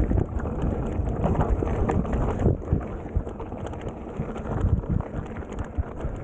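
Mountain bike rolling fast down a dry dirt trail: tyres crunching over loose dirt and small stones, with the bike knocking and rattling over bumps. Under it, a steady rumble of wind and motion on the chest-mounted camera.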